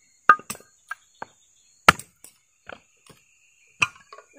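Hatchet splitting firewood on a log chopping block: several sharp, unevenly spaced chops and knocks of the blade into the wood, the loudest a little under two seconds in.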